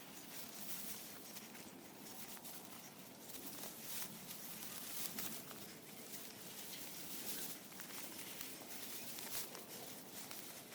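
Faint footsteps and rustling on a rough hillside trail, an uneven patter of small crunches and clicks.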